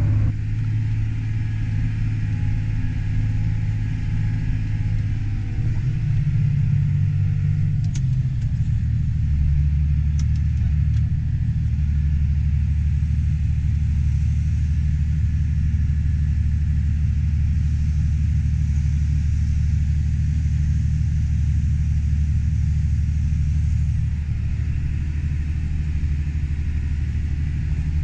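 John Deere tractor engine droning steadily, heard from inside its cab while it pulls a grain cart; the drone shifts in pitch about six seconds in and again about nine seconds in.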